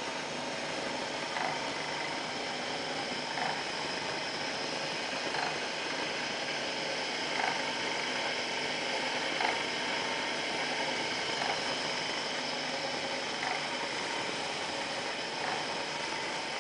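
Elektrokovina 0.75 kW electric motor driving a screw oil press through a worm-drive gearbox, running with a steady hum and whir. A light tick comes about every two seconds.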